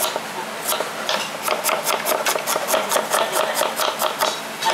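Kitchen knife chopping a red onion on a wooden board: a few separate cuts, then from about a second and a half in a fast, even run of knife strokes knocking on the board, about six a second.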